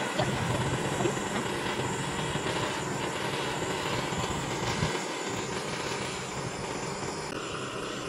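Handheld butane gas torch burning with a steady hiss, its flame playing on sawdust charcoal briquettes to light them. The sound eases slightly near the end.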